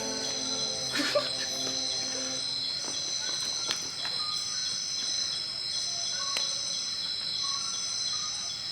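Night insects, crickets among them, trilling steadily in several high-pitched layers, with one layer pulsing on and off about once a second. A few faint clicks come through, about a second in and again later.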